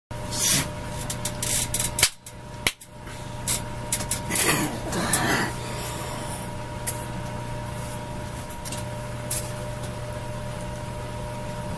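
Steady electrical hum and room noise, with a few sharp clicks and knocks and a rustle in the first half, then only the steady hum.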